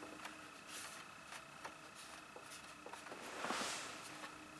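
Faint handling sounds of hands pressing and rubbing on a MacBook Air's aluminium bottom cover to seat it flush: a few light clicks, and a brief soft rub about three and a half seconds in.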